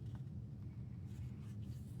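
Faint paper rustling and light handling clicks as the pages of an album photobook are turned and handled, over a steady low hum.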